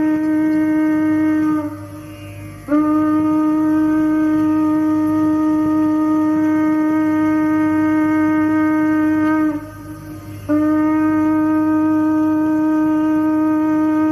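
Conch shell (shankha) blown in long, steady blasts on one low note, broken by two short breath pauses, about two seconds in and again near ten seconds, each new blast scooping up into pitch.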